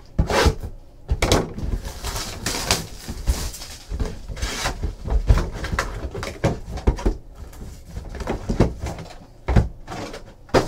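Hands opening a Panini Spectra football hobby box and setting its packs down on a table: a string of irregular taps, knocks and cardboard scrapes, with a few short stretches of rustling wrapper.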